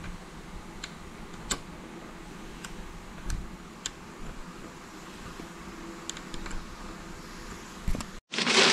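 Sparse faint clicks of a small hand screwdriver's metal bit seating in and turning screws on a scooter's stem, over a low steady background. Near the end this cuts off suddenly into a louder burst of crinkling packing material.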